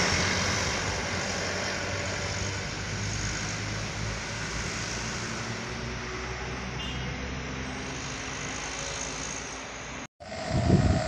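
A large road vehicle's engine running as it drives away through the bend, its rumble and road noise slowly fading. Just after ten seconds the sound cuts out abruptly, then returns louder as engine rumble with a steady hum over it.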